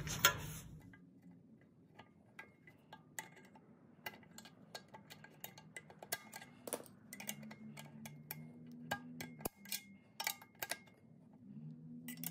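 Faint, scattered metallic clicks and taps as the low/reverse servo piston and its heavy-duty spring are pressed down by hand into the servo bore of a 904 transmission's aluminum case, with an old driveshaft yoke used as the push tool against the spring.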